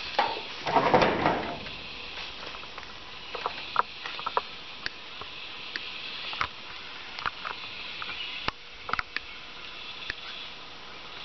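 Hands working the stripped wire ends of a solar panel cable, twisting them together: scattered small clicks and rustles, with a louder rustle about a second in.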